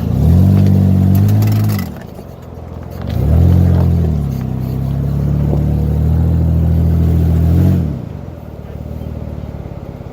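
Jeep engine revved while parked. A short rev of about two seconds drops back, then a second rev climbs and is held steady for about four seconds before falling. The engine settles into a pulsing idle about eight seconds in.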